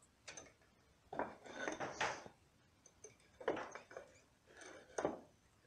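Wooden bucket staves knocking and sliding against each other and the wooden form as they are set upright one by one: four or so clacks and scrapes, about a second apart.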